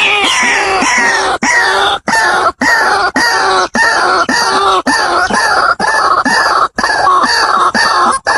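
White-breasted waterhen calling: a loud, continuous run of repeated arching notes, about two a second, broken by a few brief sudden dropouts.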